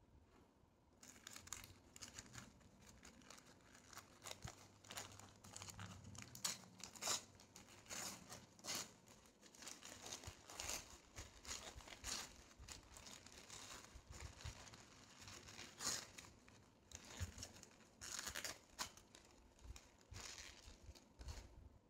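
A paper wrapper crinkling and tearing as it is peeled off a chicken shawarma roll by hand: many irregular crackles that begin about a second in.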